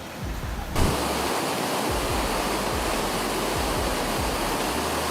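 Steady, loud rush of fast-moving water, starting abruptly just under a second in.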